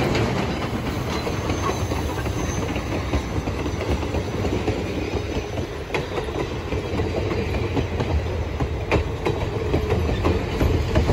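Train of steel passenger coaches rolling past close by at speed, a steady rumble of wheels on rail with occasional sharp clicks at the rail joints.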